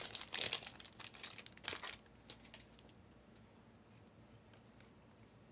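Foil wrapper of a Panini Prizm trading-card pack crinkling and tearing as it is opened by hand, for about two seconds, then a few faint clicks as the cards are handled.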